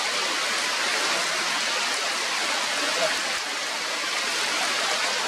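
Steady rain falling on forest foliage, an even unbroken hiss.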